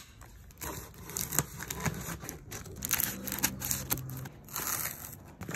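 Scissors cutting along the taped seam of a cardboard shipping box: irregular snips, scraping and tearing of packing tape and cardboard.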